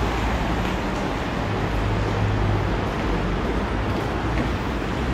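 Steady rumble and low hum of a moving vehicle.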